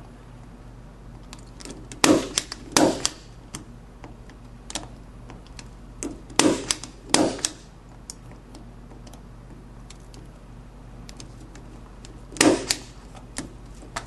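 Harris Dracon impact punch-down tool with a 110 blade snapping as it seats Cat6 conductors into a keystone jack's slots and cuts off the excess: five sharp snaps, two close pairs and then a single one, with light clicks between.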